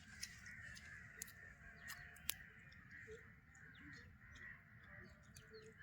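Near silence: faint night-time background with a steady high-pitched chirring and scattered small clicks, one sharper click about two seconds in.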